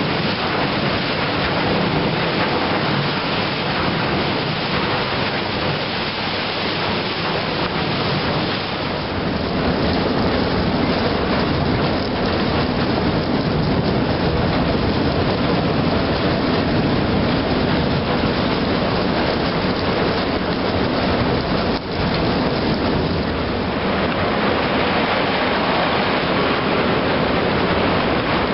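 Broken ice floes grinding and crackling along a ship's steel hull over rushing water as the vessel pushes through river ice: a steady, dense noise.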